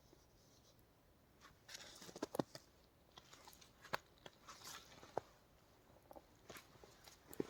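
Faint, irregular crunches and clicks, a few at a time, with a brief busier patch about two seconds in.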